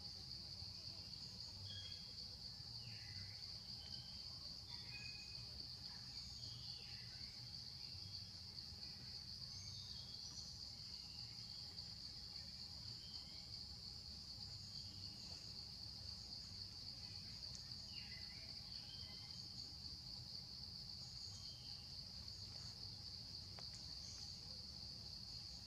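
Steady high-pitched drone of insects in the forest canopy, faint and unbroken, with a few short falling chirps scattered through it.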